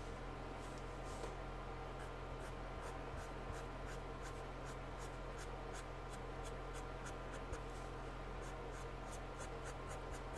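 Felt-tip marker scratching on brown card in short, quick flicked strokes, drawing fur: a run of light scratches about three or four a second, over a steady low hum.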